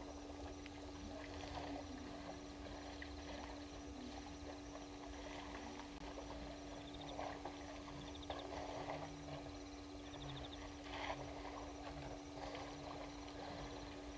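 African elephants drinking at a waterhole: irregular splashing and sloshing of water, with a few short low sounds near the middle. A steady low hum runs under it, and faint short high chirps repeat about every second and a half.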